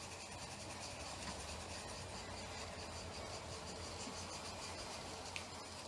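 Faint steady hiss with a fine even pulse from a small live-steam G-scale locomotive and its train running along the track, with a single click about five seconds in.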